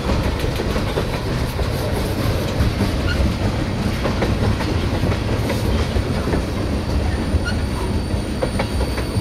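Freight train of tank cars rolling past: a steady rumble of steel wheels on the rails, with faint clicks through it.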